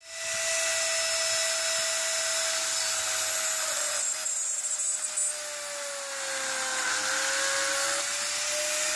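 A Dremel-type rotary tool, stand-mounted, drilling a clearance hole through a small brass cylinder cap. It makes a steady high-speed whine with hiss, and its pitch sags a little about two-thirds of the way through before coming back up.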